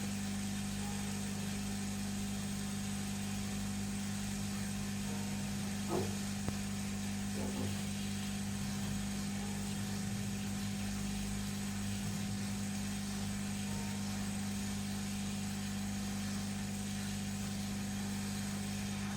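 Hot air rework gun blowing steadily: a constant fan hum with hiss, heating a Wi-Fi chip to melt its solder and lift it off the circuit board. Two faint short sounds come about six and seven and a half seconds in.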